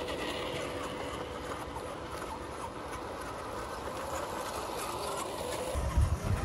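Radio-controlled scale off-road crawlers driving slowly over river stones: a faint electric-motor and gear whine with tyres grinding on rock. A few low thumps come near the end.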